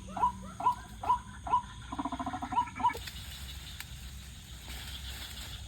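White-breasted waterhen (ruak-ruak) calling: a regular run of repeated rising notes, a little over two a second, breaking into a faster chatter. The calls cut off suddenly about three seconds in, leaving a low steady background hum.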